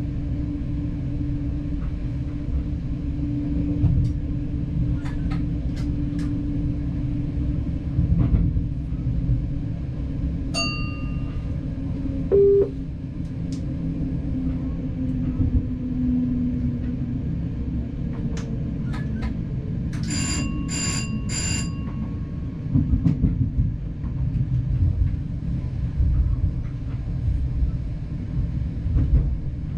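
Diesel multiple unit rumbling as it runs slowly into a station and comes to a stop. A short beep sounds about 12 seconds in, and three quick bell-like rings come about 20 seconds in.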